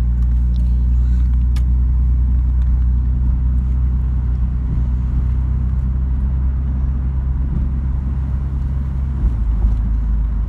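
A moving car's engine and road noise heard from inside the cabin: a steady low hum that shifts slightly near the end.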